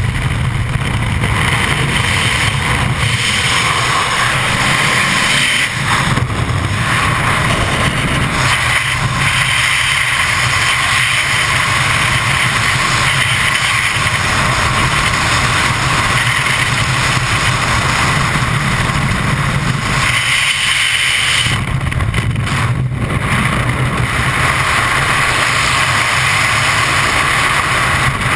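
Loud, steady wind rush over a helmet-mounted camera in skydiving freefall.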